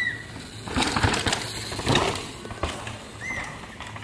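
Downhill mountain bike passing over rocky, rooty ground: tyres scrabbling and skidding on dirt and stones, with the bike clattering, loudest in the first half. Two short high chirps, one at the start and one about three seconds in.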